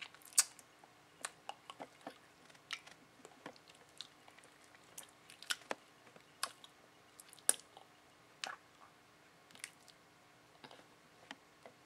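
Faint, irregular small clicks and smacks close to the microphone, about one or two a second, over a faint steady hum; the loudest comes just after the start.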